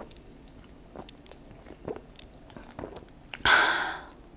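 Gulps of Coca-Cola from a can, with a soft swallowing click about once a second, then a loud breathy exhale about three and a half seconds in.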